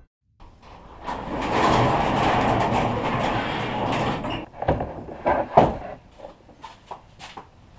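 Garage door pushed up by hand, rolling along its tracks with a steady rattle for about three seconds, then a few separate knocks and clunks.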